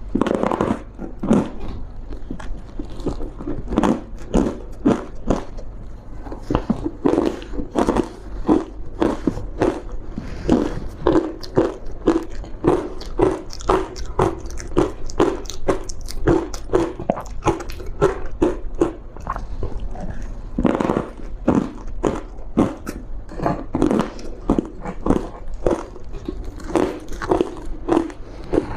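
Thin ice dusted with green matcha powder being bitten and chewed, close to the microphone: a dense run of sharp crunches, several a second, with short pauses between mouthfuls.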